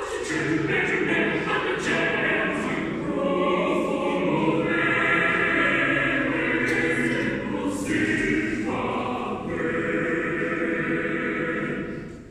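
A high-school girls' choir singing unaccompanied in several parts. The voices come in together at once, break off briefly about eight seconds in, then carry on and stop near the end.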